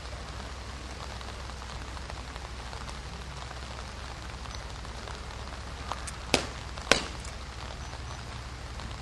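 Steady hiss of background noise, with two sharp knocks about half a second apart around two-thirds of the way in.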